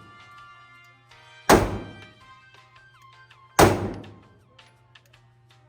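Two pistol shots about two seconds apart, each a sharp crack with a short echoing tail, fired at a paper target. Background music plays under them.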